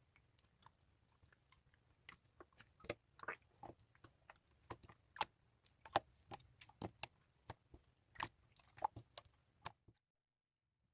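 Faint, irregular clicks and taps, a few each second, which stop abruptly near the end.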